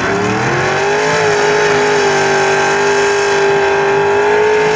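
Lifted Ford Super Duty mud truck on tractor-tread tires revving hard while spinning through deep mud: the engine climbs in pitch over the first second, then holds high and steady at full throttle.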